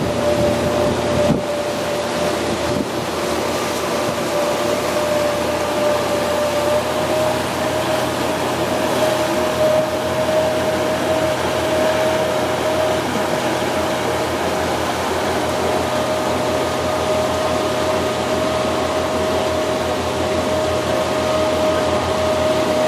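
Fishing boat's outboard engines running steadily while underway, a constant drone with a steady whine, mixed with the rush of wind and water.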